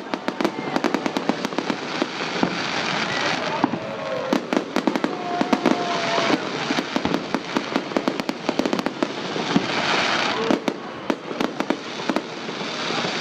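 Fireworks salute: dense, rapid crackling and popping throughout, with a brief whistling tone about five seconds in.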